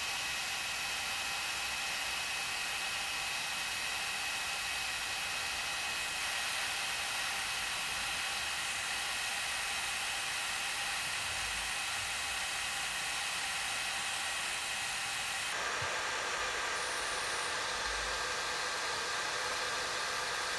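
Electric nail drill with a ball-shaped bit grinding down a thickened fungal toenail: a steady high whine over hiss. The sound shifts abruptly about three-quarters of the way through.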